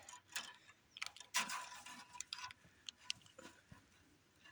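Barbed fence wire being bent and twisted by hand into a splice loop: scattered sharp metallic clicks and ticks, with a louder scrape about a second and a half in.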